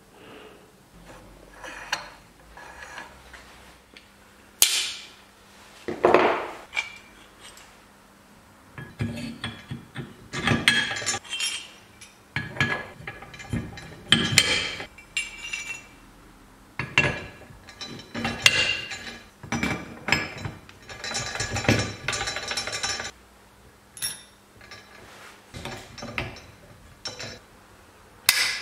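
Steel gearbox gears of a Vespa GS 150 engine clinking and clanking against each other and the aluminium engine case as they are fitted by hand: irregular metallic knocks, some ringing briefly.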